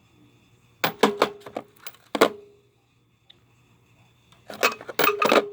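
Chrome steel sockets clinking and knocking as they are handled and set down, in two clusters of sharp metal knocks, the strongest ringing briefly.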